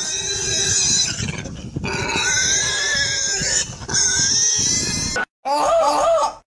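A pig squealing loudly and continuously, shrill and unbroken, with a wooden stool stuck around its body; the squealing cuts off abruptly about five seconds in.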